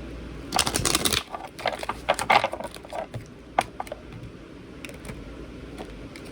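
Tarot cards being shuffled and handled: a dense, rapid fluttering run of cards about half a second in, then a series of sharper taps and slaps that thin out to a few light clicks.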